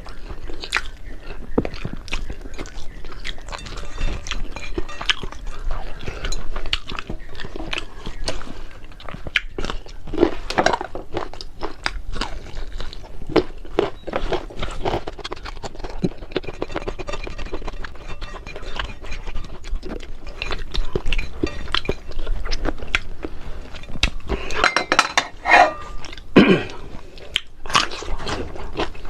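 Close-miked chewing and crunching of crispy fried fish with rice: irregular crackling bites and wet mouth sounds, with a louder, pitched mouth sound near the end.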